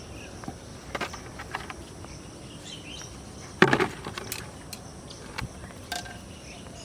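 Outdoor rural ambience with faint high chirping, broken by a few scattered clicks and knocks and one louder short knock or splash-like burst about three and a half seconds in.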